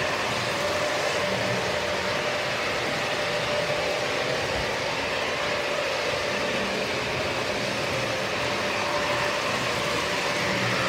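O scale model trains running past on the layout's track: a steady rolling rumble of wheels on rail with a constant motor hum.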